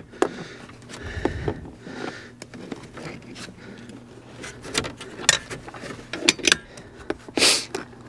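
Irregular clicks, knocks and rustling of hands pulling at a car's plastic interior trim and carpet at the foot of the door pillar, with a brief louder rustle near the end.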